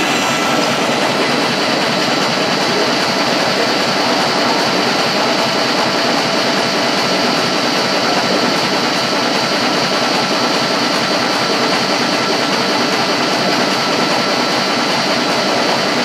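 An old stationary engine and the antique generator it turns by a flat belt, running steadily: a fast, even mechanical beat under a steady high whine.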